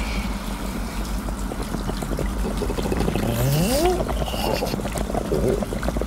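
Cartoon sound effect of water running into a bath, over a steady low rumble. One short rising tone comes about three seconds in.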